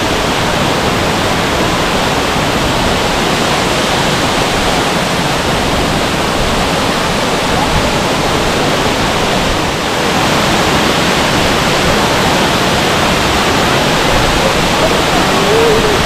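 A waterfall's water pouring down: a loud, steady rush that dips briefly about ten seconds in.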